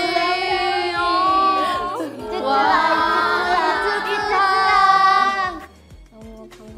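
Several young women chanting a nickname in playful, drawn-out sing-song voices, overlapping one another, with a brief break about two seconds in. The chanting stops about a second before the end, leaving light background music with a soft beat.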